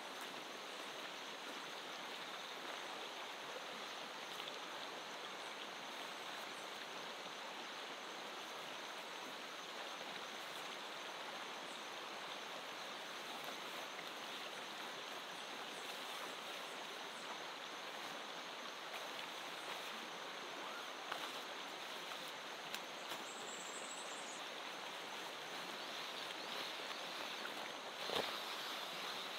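Steady rushing of a shallow river running over rocks. A few faint handling clicks and one soft knock about a second before the end come from camping gear being handled at the tent.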